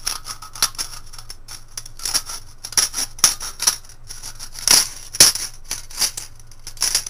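Scissors cutting through the thin aluminium wall of a soda can: a quick, irregular run of crisp snips and metallic crinkles as the blades close and the sheet flexes, several to the second.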